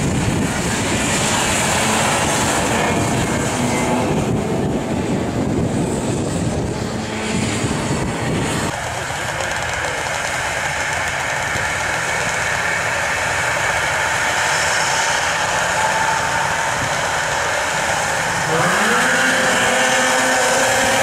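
Vintage two-stroke racing snowmobiles running hard as they race past. After a cut, a pack of sleds idles on the start line, and near the end their engines rev up with a sharp rise in pitch as they launch.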